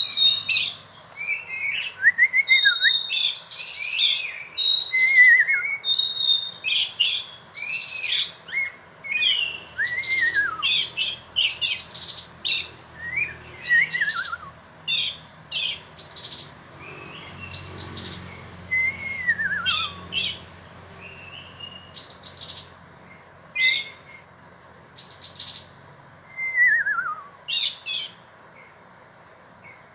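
Small birds calling: rapid, sharp chirps, many in the first half and sparser later, mixed with about six clear whistled notes that slide down in pitch.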